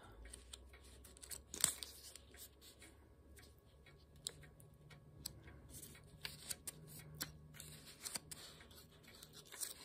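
Faint, irregular soft ticks and rustles of paper pages being flipped by hand through a small matchbook-style pad of picture sheets.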